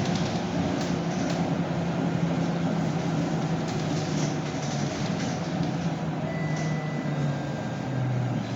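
Scania K230UB city bus's diesel engine running steadily under way, heard from inside the passenger cabin over road and body noise. Near the end the engine note drops as the revs fall.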